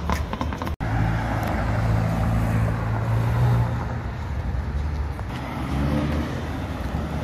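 Sports car engine and exhaust running at low revs as the car drives on the street, a steady deep note that swells about three and a half seconds in. Less than a second in, a short stretch of music cuts off abruptly before the engine sound.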